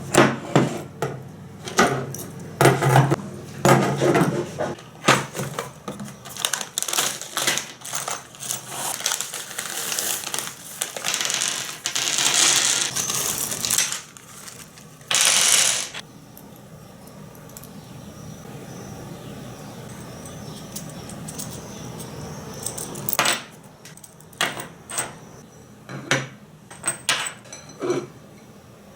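Small metal parts and hand tools clinking and knocking as they are handled, in irregular sharp clicks. A rushing noise about a third of the way in and a short loud burst about halfway through break up the clicks.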